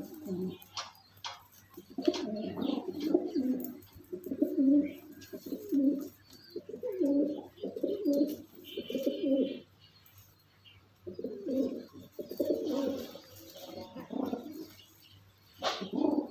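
Domestic pigeons cooing: repeated low, throaty warbling phrases, each about a second long, with a short break about two thirds of the way through and a few faint higher chirps.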